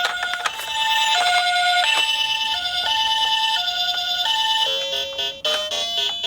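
Ambulance siren in the Japanese two-tone 'pee-poh' pattern, alternating between a higher and a lower tone about every two-thirds of a second. About three-quarters of the way through it gives way to piano-like music.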